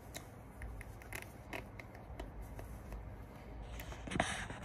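Handling noise from a phone held close to the body: scattered light clicks and scrapes with clothing rustle, then a louder brushing rustle near the end.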